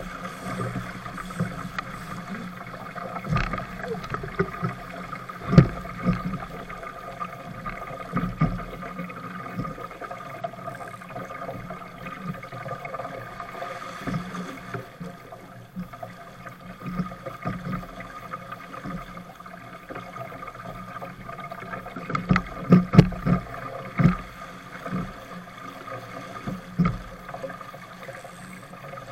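Choppy water rushing and splashing along a small sailboat's hull as it sails heeled over, with irregular thuds as the hull slaps into waves, several close together about three-quarters of the way through.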